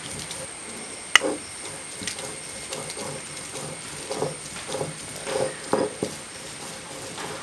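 Stone roller grinding wet spice paste on a flat grinding stone (ammikkallu): repeated rough rolling and scraping strokes of stone on stone, with one sharp knock about a second in.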